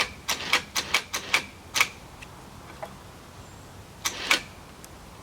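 Winch ratchet clicking in a quick, uneven run of about eight clicks, then two more clicks after a pause, as the winch is wound to put a little tension on the log.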